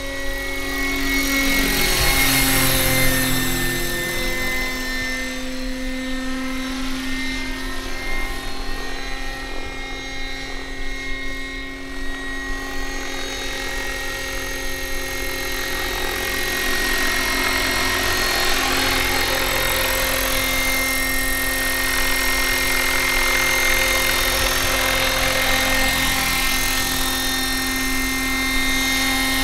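1:7 scale Bell 230 RC model helicopter with electric drive flying: a steady high whine from its electric motor and rotor drive over the rotor noise, swelling and fading as it moves about. It is loudest about two to three seconds in.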